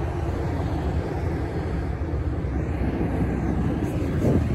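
Steady low rumble of street traffic passing by.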